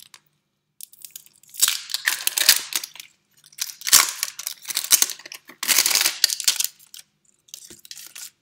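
Clear plastic wrapper crinkling and tearing as it is pulled off a roll of kinesiology tape, in four bursts with short pauses between; the last is fainter.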